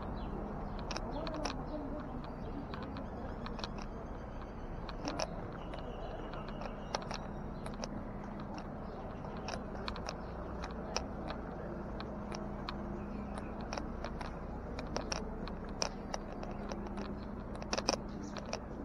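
Handling noise from a body-worn camera as its wearer walks across stone paving: scattered, irregular clicks and scuffs over a steady low background hum.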